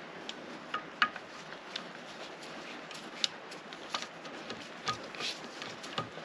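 Light, scattered clicks and rubbing of small parts being handled, about a dozen irregular ticks against quiet background hiss, as engine parts and a new gasket are handled during reassembly.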